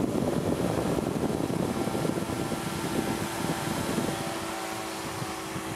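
Powered parachute's engine and propeller running steadily in flight, a dense drone over which a steady hum tone comes through more clearly from about three seconds in.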